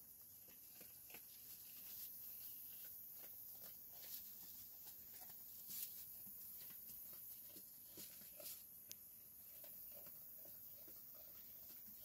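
Near silence with faint, scattered rustles and small clicks from sheep feeding at a hay net and stepping on straw bedding.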